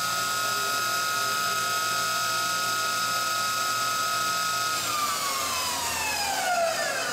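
The spindle of a Kitamura Mycenter 2 vertical machining center runs at 7,000 RPM with a steady whine. About five seconds in it begins winding down, and its pitch falls as it slows.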